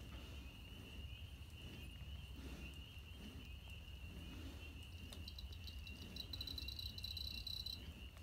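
Faint night insect chorus: a steady, high cricket drone, joined about five seconds in by a second insect's rapid pulsing trill, which stops shortly before the end.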